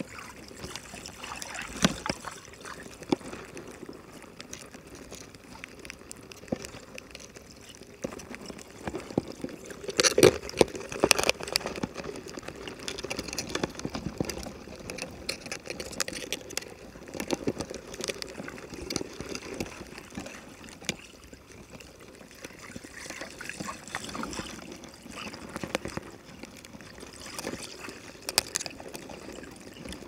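Muffled underwater water noise picked up through a GoPro's waterproof housing, with scattered sharp clicks and knocks, the loudest cluster about ten seconds in.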